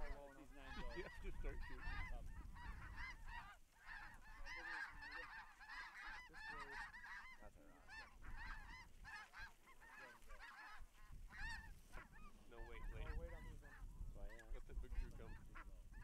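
A large flock of snow geese calling overhead: many high, overlapping honks and yelps all at once, with no break, under a low rumble of wind on the microphone.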